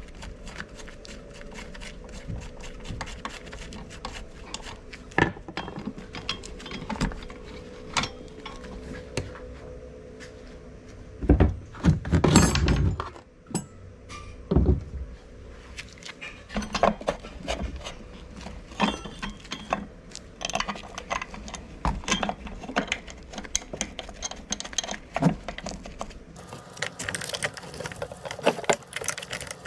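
Irregular clicks, knocks and clinks of tools and metal parts being handled while working on a TL43 brush cutter's clutch, with a louder clatter about twelve seconds in.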